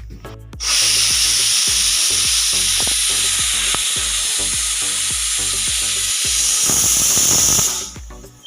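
Pressure cooker whistle venting steam: a loud, steady hiss that starts under a second in, turns shriller near the end and cuts off sharply after about seven seconds. The weight lifts as the cooker reaches full pressure.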